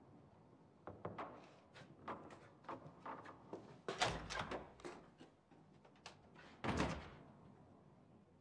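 Booted footsteps on wooden attic boards walking away, as a run of knocks, then two heavy thuds about four and nearly seven seconds in: a door being shut.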